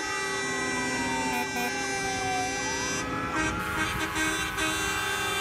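Siren wailing: its pitch falls slowly for about two seconds, then sweeps back up. Underneath are many steady held tones and the rumble of trucks driving past.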